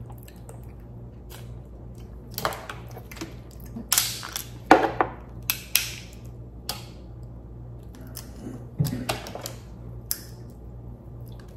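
Cooked Dungeness crab shell being cracked and snapped apart by hand: a string of sharp cracks and crunches with short pauses between, the loudest a little after the middle.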